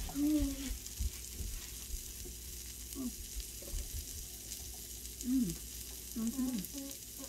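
Thin-sliced steak and asparagus sizzling steadily on the griddle plate of a tabletop electric grill. A few short voice sounds, like brief hums, rise over it just after the start and about five seconds in, with light knocks from handling.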